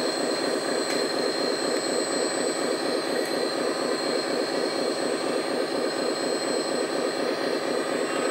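Hydraulic pump of a 1/14 LESU 8x8 RC dump truck running steadily as the tipper bed lowers, a steady high whine over an even mechanical hum.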